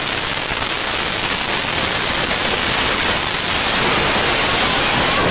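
Loud, steady rushing noise from the blast of a huge explosion overloading a phone microphone, a dense hiss-like roar with no distinct bangs.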